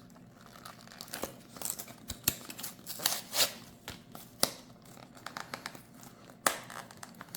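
Spare-battery packaging being opened by hand: crinkling and tearing, with scattered sharp clicks, a few louder snaps through the middle and one near the end, as the packaging resists.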